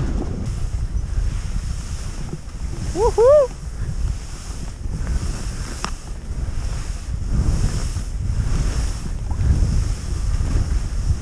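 Wind rushing over a skier's camera microphone during a fast descent through deep powder, swelling and easing with the skis' turns through the snow. About three seconds in, a short two-note rising cry cuts through, the loudest sound.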